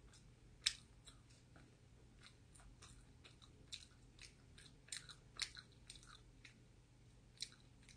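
Faint, close-miked chewing of a mouthful of pizza: soft, irregular wet mouth clicks and smacks, with the sharpest ones about a second in and near the middle.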